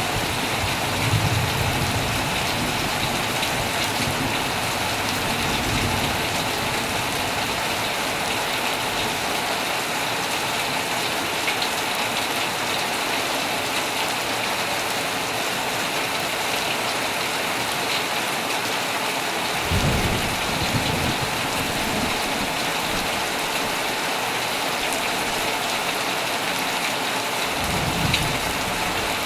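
Heavy rain falling steadily on a tent, a dense even hiss, with a few brief low rumbles: about a second in, around twenty seconds in and near the end.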